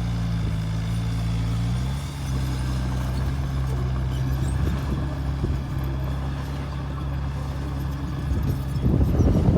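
Bulldozer's diesel engine running steadily, its pitch dropping slightly about two seconds in. Near the end a louder rough, rattling noise rises over it.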